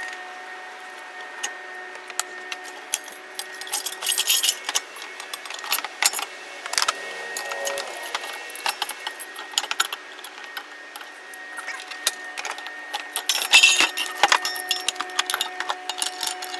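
Metal parts of a Hunter Westminster ceiling fan clinking, clicking and scraping as it is taken apart by hand, busiest about four seconds in and again near the end, over a faint steady hum.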